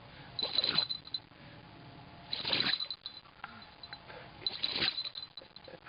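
Kai Ken dog sneezing, three short sneezes about two seconds apart.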